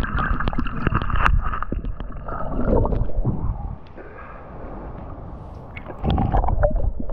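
Water heard through a waterproof action camera's housing: muffled bubbling and gurgling with many small clicks while underwater, easing off about four seconds in as the camera comes up, then louder sloshing and splashing at the waterline near the end.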